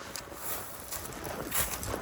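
Irregular crunching and rustling of footsteps pushing through dry brush and leaves.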